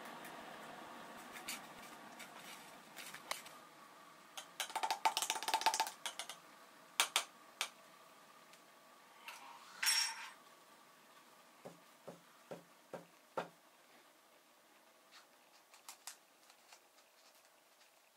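A thin metal rod clinking and scraping against the inside of a clear plastic cup, with a quick run of ringing clinks about five seconds in. A short sharp scrape comes near the middle, followed by five low knocks at about two a second.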